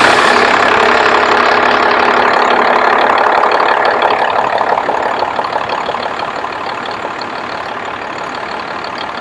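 1995 Dodge's 12-valve Cummins 5.9-litre inline-six turbodiesel running just after a start, with a newly replaced lift pump feeding it. It is loudest for the first few seconds, then settles to a quieter, steady idle about five seconds in.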